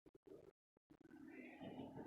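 A faint, soft human voice sound starting about a second in and going on past the end, after a few faint clicks.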